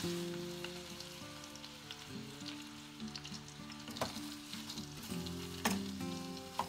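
Prawns sizzling in melted butter and garlic in an aluminium pot, stirred with a wooden spoon that knocks against the pot twice, about four seconds in and again near the end. Soft background music plays underneath.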